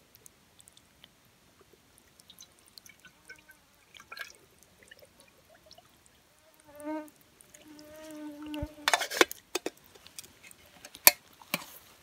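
A metal cooking pot being filled by dipping it sideways into a shallow spring pool: water gurgles in with pitched glugs as the air escapes, then a louder splash and pour about nine seconds in, followed by a couple of sharp knocks.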